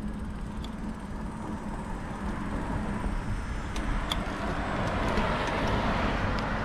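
Road traffic: a car passes, its tyre and engine noise swelling over the second half and easing off near the end, over a steady low rumble.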